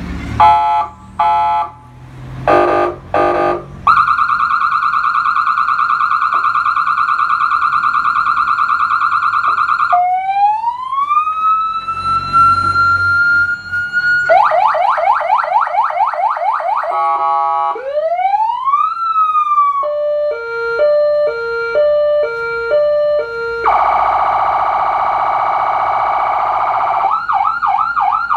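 Electronic vehicle siren stepping through its tones one after another: a few short blasts, a rapid steady warble, a slow rising wail, fast repeated falling yelps, a single rise-and-fall sweep, an alternating hi-lo two-tone pattern, a steady buzzy tone, and a fast pulsing warble near the end.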